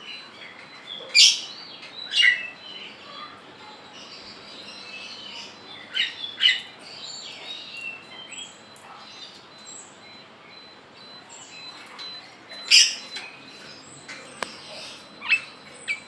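A pet lovebird calling busily. About seven loud, sharp, shrill chirps come every few seconds, with softer twittering chatter between them.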